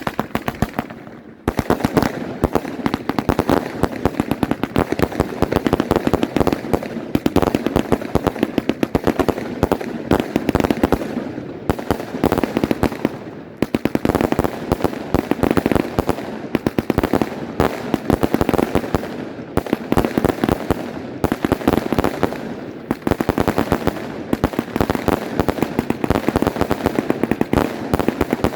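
Volt! Speedtrap firework battery firing a rapid, dense string of shots, many per second, with a brief lull about a second in and short dips between volleys.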